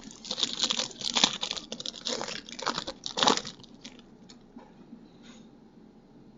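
Trading-card pack wrapper crinkling and tearing as it is opened, in a run of rustling bursts lasting about three and a half seconds, then a few light ticks of handling.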